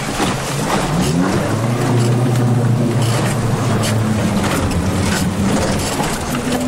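A four-wheel drive's engine revving up about a second in and then holding at high revs as it pushes through a muddy water hole. Muddy water splashes and slaps against the body and windscreen, heard from inside the cabin.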